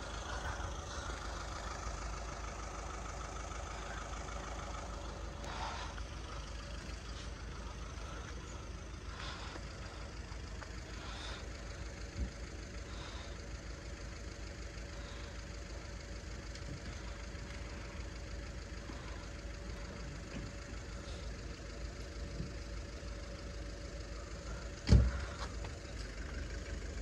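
Engine idling: a steady low rumble with a steady hum over it. A single sharp knock sounds near the end.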